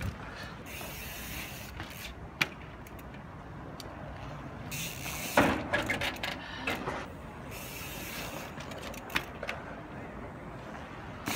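Mountain bike doing trials hops onto and along a wooden bench. There is a sharp knock about two and a half seconds in, and a loud impact about five seconds in as the tyres land on the bench, followed by smaller knocks. Between them the rear freewheel ticks in short spells.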